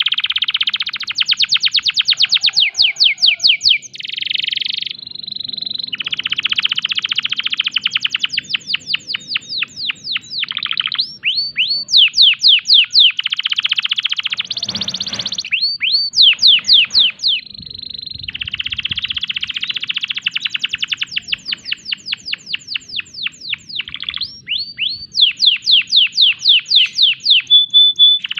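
Male domestic canary in breeding condition singing a long, loud song: very fast runs of repeated downward-sweeping notes and buzzy trills, broken by short held whistles and brief pauses.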